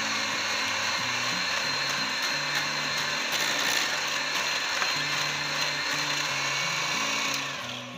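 Electric hand mixer running steadily, its beaters whisking eggs in a glass bowl, switched off near the end. Soft background music underneath.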